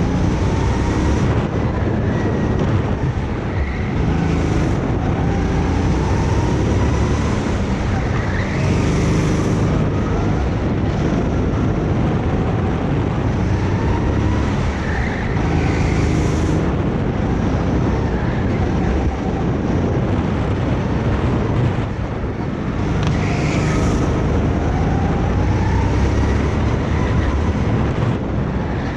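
Kart engine running continuously under load, its revs rising and falling again and again as it drives round the track.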